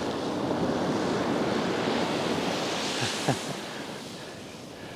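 Ocean surf breaking on the beach: the wash of a wave swells over the first three seconds, then fades.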